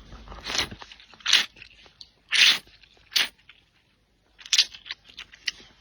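Close-miked eating of spicy starch noodles: about six short slurps and chewing sounds, with a brief pause around the middle.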